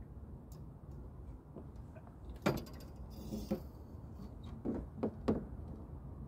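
Landing net knocking against the side of an aluminium boat as a fish is netted: a handful of sharp knocks from about halfway through, the first the loudest, with a brief rustle between them, over a steady low rumble.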